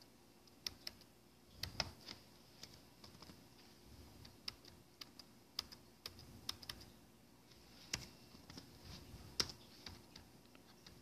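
Faint, irregular clicks of keys being typed on a computer keyboard while new numbers are entered into settings.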